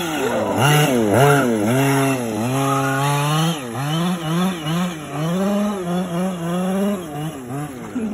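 Large-scale RC short-course truck's small engine revving up and down over and over as the truck accelerates and slides on loose dirt, with the swings in pitch coming quicker in the second half.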